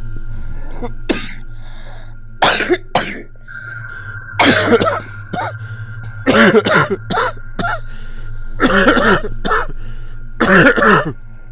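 A person coughing repeatedly: about ten loud, short coughs in bouts of one to three, spread through several seconds.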